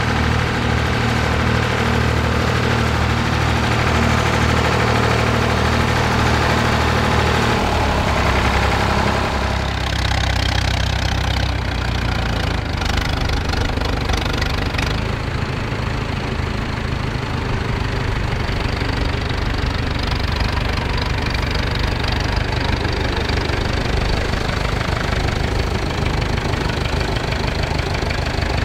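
Massey Ferguson 135 tractor engine running steadily under load while ploughing; after about eight seconds the sound changes to a red International tractor's engine pulling a mounted plough, running with a rougher, knocking beat.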